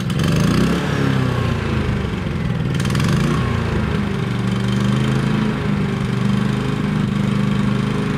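Champion 3100 watt inverter generator's engine catching and revving up briefly, then settling into a steady run. It is running on a newly fitted carburetor, replaced to cure surging at idle, and now runs smoother.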